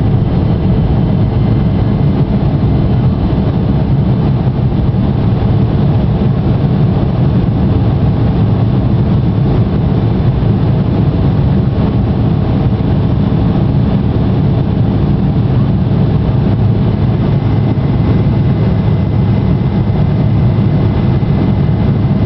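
Inside the cabin of an Embraer 170 climbing out after takeoff: its wing-mounted General Electric CF34 turbofans at takeoff/climb power give a steady, loud, low rumble with a faint high whine over it.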